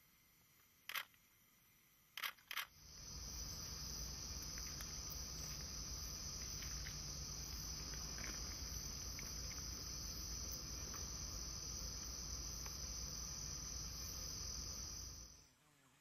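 Steady high-pitched drone of rainforest insects, with a low rumble beneath. It starts about three seconds in and cuts off suddenly just before the end. Before it come three short, sharp sounds.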